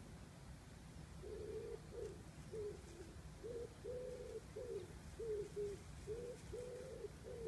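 A pigeon cooing: a run of low, hollow notes in repeated rhythmic phrases, starting about a second in.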